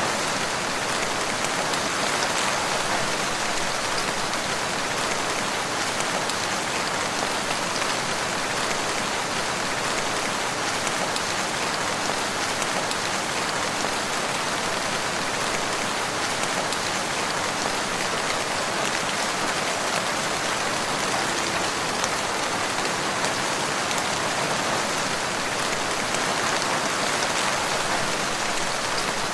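Steady, even rain falling, an unbroken hiss of drops with faint individual drop ticks scattered through it.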